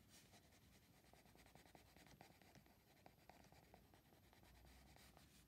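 Faint scratching of a Derwent Coloursoft coloured pencil shading on paper, in many short, irregular strokes.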